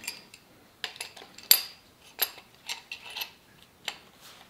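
Sharp metal clinks and taps, about eight of them at uneven spacing, the loudest about a second and a half in. They come from metal tools and brass fittings knocking against a new mechanical fuel pump as its fittings are put on by hand.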